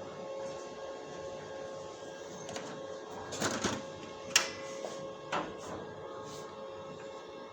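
A steady electrical hum with a few sharp clicks and rattles of handling: a cluster about three and a half seconds in, the loudest click about a second later and one more about a second after that.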